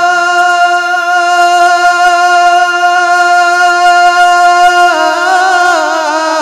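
A man's voice singing a naat, holding one long, steady note for about five seconds, then dropping in pitch and winding into a wavering run of notes.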